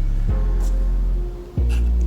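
Background music with sustained low bass notes; it dips briefly about a second and a half in, then comes back.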